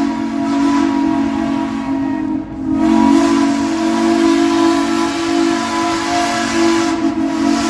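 Steam whistle of a Shay geared logging locomotive blowing long, loud blasts that sound several notes at once over a hiss of escaping steam, with a short break about two and a half seconds in before it sounds again.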